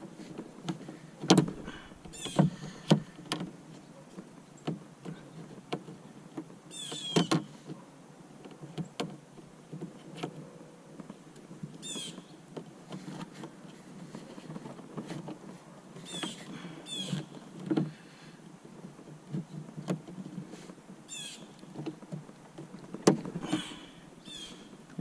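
Plastic push rivet being pried and pulled out of a plastic kayak with a flathead screwdriver and side-cutting pliers: scattered clicks and knocks of the tools on plastic, with several short squeaks as the rivet is worked loose.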